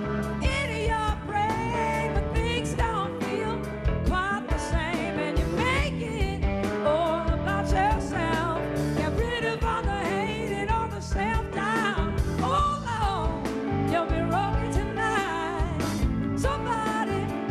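Blues-rock band playing: electric guitars, keyboards, bass and drums, with a sung lead vocal over a steady beat.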